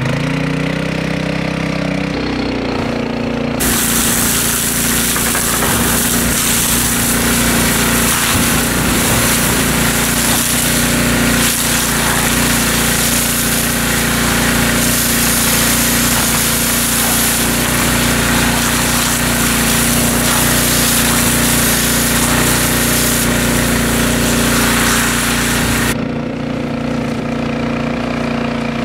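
Small engine-driven water pump running steadily. From about four seconds in until a few seconds before the end, a loud hiss joins it as the fire hose sprays onto the fire-heated cob wall and the water flashes to steam, then the hiss cuts off suddenly.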